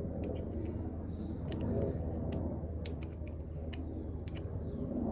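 Scattered light metallic clicks of a small wrench on a motorcycle's coolant drain bolt as the bolt is refitted, over a steady low hum.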